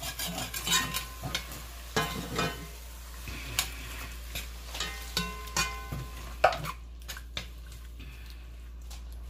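Metal spoon stirring and scraping chicken strips around an enamelled cast-iron pot, deglazing the browned bits off the bottom with just-added water, over a steady sizzle. There are irregular scrapes and knocks, with a few ringing clinks of spoon on pot about five to six seconds in.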